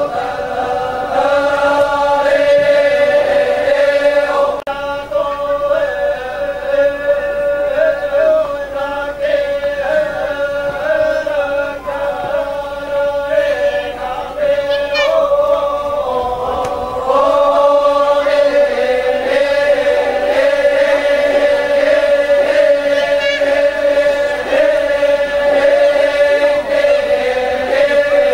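A group of voices chanting together in a long, sustained line, holding mostly one pitch with a few slow shifts.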